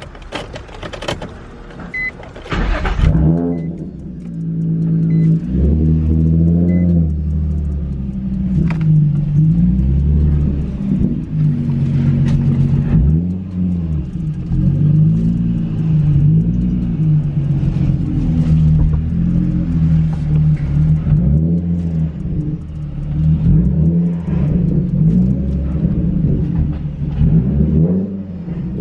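Nissan 350Z's 3.5-litre V6 running through a loud aftermarket Tomei exhaust, revs rising and falling over and over. No whistle is heard above it: the bolt-on turbo whistle does nothing, which the owner puts down to the loud exhaust or a wrong install.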